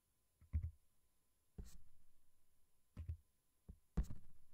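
Handling noise from a hand adjusting the webcam: a handful of dull knocks and bumps with quiet between, the loudest near the end.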